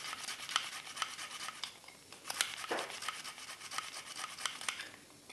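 A garlic clove rubbed back and forth across the metal grating plate of a handheld plastic garlic grater: quick repeated scraping strokes, pausing briefly about two seconds in and stopping near the end.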